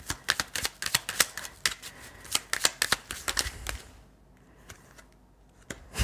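Oracle cards being shuffled: a rapid run of crisp card flicks and slaps for about four seconds, then only a few faint taps as the shuffling stops.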